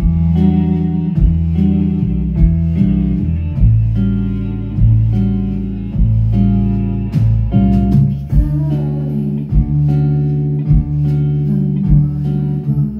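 Live pop band music: an electric hollow-body guitar picking over held keyboard chords and a low bass line, with a soft beat about every 1.2 seconds.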